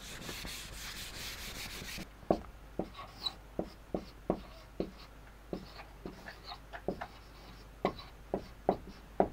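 A whiteboard duster rubbing across the board for about two seconds, then a marker pen writing on the whiteboard: short taps and squeaks, about two strokes a second.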